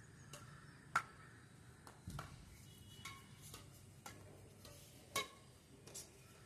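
Badminton racket strings hitting a shuttlecock: sharp hits, the loudest about a second in and another about five seconds in, with fainter clicks in between.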